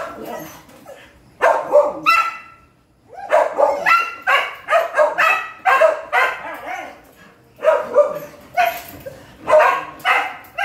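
Dogs barking territorially at an intruding palm civet, in quick runs of barks separated by short pauses.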